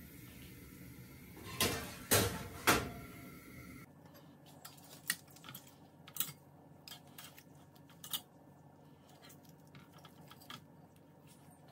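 Three loud knocks at the oven, then a run of light metallic clicks and clinks as steel tongs turn chicken pieces on a wire rack over a foil-lined baking tray.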